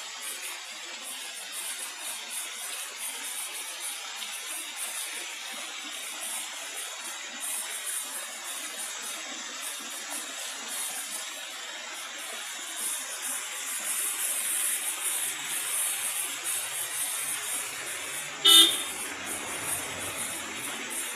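Waterfall rushing steadily, with one short vehicle horn toot near the end.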